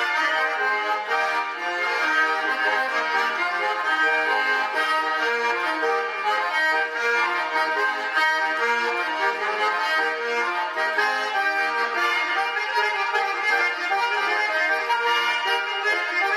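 Garmon (Russian button accordion) playing a traditional village dance tune (naigrysh), several notes sounding together, the melody moving several notes a second, without a break.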